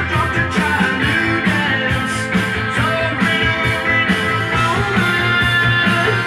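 Rock song with singing, guitar and a steady beat, played back from a vinyl record on a Technics SL-3200 direct-drive turntable.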